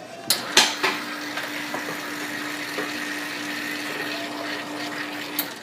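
Astra espresso machine's brew pump running during a backflush with a blank portafilter and cleaning powder: a steady hum with hissing water. It starts after a couple of sharp clicks and cuts off with a click near the end.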